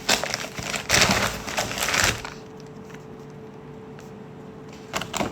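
Crackling and tearing of a parcel's packaging being handled and opened for about two seconds, then a faint steady hum with a couple of short clicks near the end.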